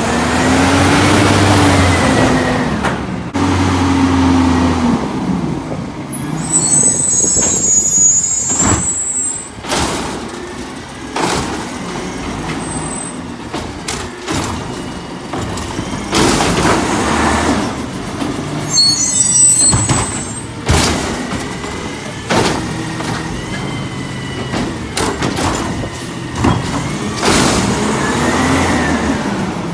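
Autocar garbage truck with a Bridgeport automated side-loader: the CNG engine revs up and falls back twice while the hydraulic arm lifts and dumps carts, with clanks and knocks from the cart and refuse dropping into the hopper. Air hisses in two bursts in between.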